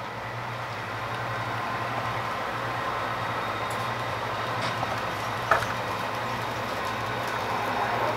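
Model trains running on a model railroad layout: a steady whir of small motors and wheels on track, with a single click about five and a half seconds in.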